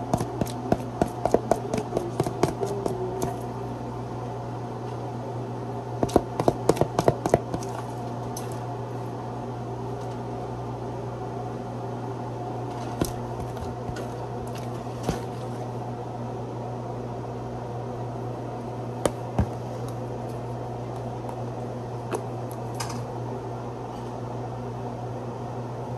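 Fast runs of small clicks and taps, a kitchen utensil against a dish, about the first three seconds and again around six to seven seconds in, with single taps later, over a steady low hum.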